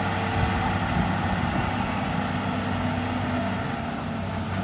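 Heavy diesel engine running steadily at a constant pace, a low even drone.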